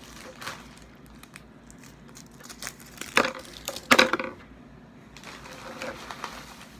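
Packing paper being pulled out of a box and crumpled, rustling and crackling, with the loudest crackles about three and four seconds in.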